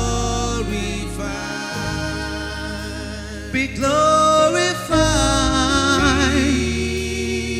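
Worship music: a voice singing long held, wavering notes over sustained instrumental chords and a steady bass.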